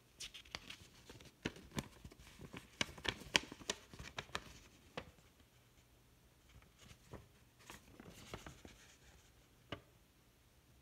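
A folded paper instruction sheet being unfolded and handled, crinkling in quick, sharp crackles. The crackling is densest over the first five seconds, eases off, and comes back for a short stretch about eight seconds in.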